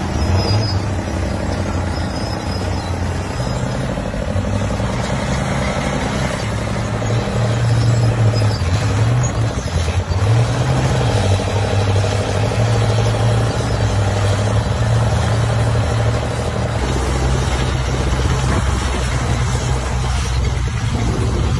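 Engine of a small wheeled excavator with outrigger legs running steadily while it works, its pitch dipping and rising now and then and settling lower near the end.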